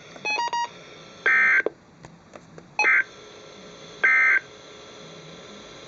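Emergency Alert System end-of-message code over NOAA Weather Radio: three short, identical bursts of the harsh two-tone digital data signal, about a second and a half apart, marking the end of the Civil Emergency Message. A quick run of short beeps comes just before the first burst.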